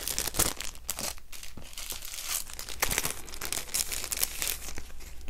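Sheets of planner stickers rustling and crinkling as they are shuffled through by hand, in a run of quick, irregular rustles.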